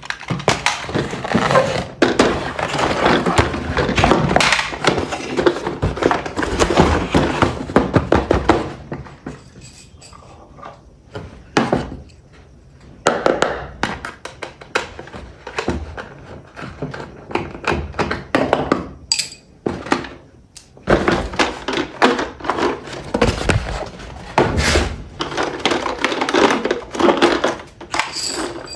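Objects being handled at close range: a dense run of knocks, clatter and rustling that thins out about a third of the way in, with a few scattered knocks, then picks up again near the end.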